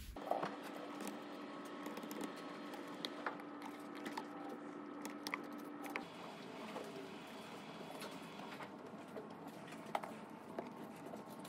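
Quiet indoor room tone: a steady hum that drops out about halfway through, with scattered light clicks and taps.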